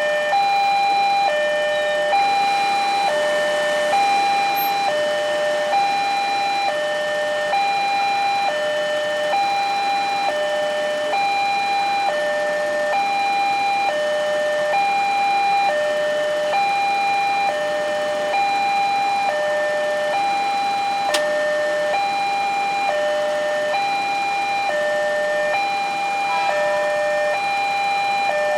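Electronic warning alarm of a LEN railway level crossing, sounding a steady two-tone high-low pattern that switches pitch about every half second. It signals that a train is approaching and the gates are closed. A single sharp click comes about 21 seconds in.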